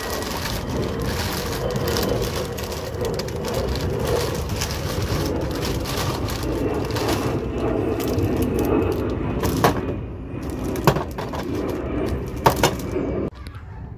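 Plastic wrapping crinkling and rustling as strut bar parts are pulled out of their bags and sleeves. A few sharp knocks come near the end.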